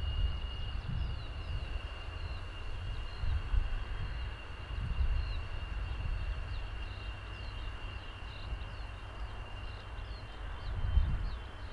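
F-16 jet engine heard from far off at low power on its landing roll-out: a steady high whine, sinking slightly in pitch, over a gusty low rumble. Small birds chirp throughout.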